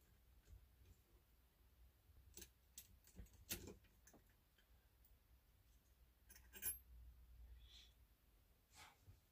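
Faint, scattered metallic clicks and light scrapes of a screwdriver working the small screw of a vintage Singer Featherweight's thread tension assembly. The loudest clicks come about three and a half and six and a half seconds in.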